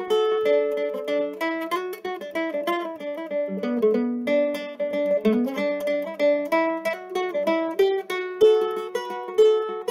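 A-style mandolin played with a pick: a melody in quick, evenly picked notes, with the pick hand moving fast.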